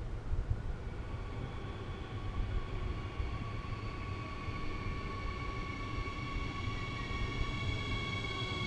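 Siemens Desiro HC electric multiple unit (class 462) approaching the platform. A high, steady whine with several overtones sets in about a second in and grows louder as the train nears, over a low rumble.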